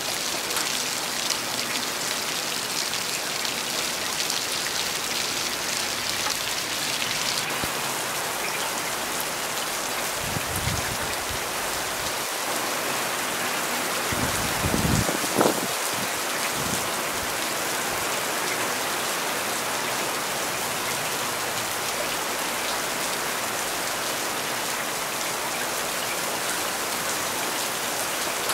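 Steady rain falling as a dense, even hiss of many drops. About halfway through comes a brief low rumble, ending in a short thump.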